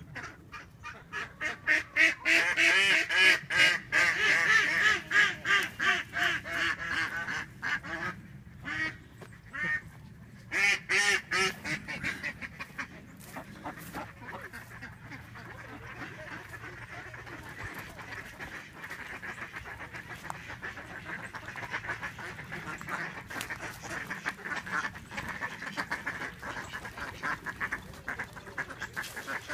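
A flock of domestic ducks quacking, loud and in quick runs for the first dozen seconds, then a quieter, steady chatter of quacks.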